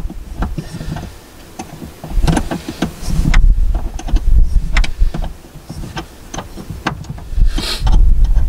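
Irregular metallic clicks and clinks of hand tools working on the truck's battery terminals and cables, with wind buffeting the microphone in low gusts.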